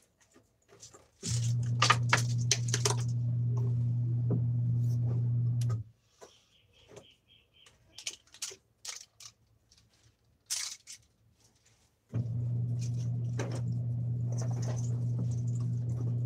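Single-tub washing machine's electric motor humming steadily, running for about four seconds, stopping, then starting again about six seconds later, as when the agitator works in spells. Light clicks and clatter of plastic clothes hangers being handled fill the pause.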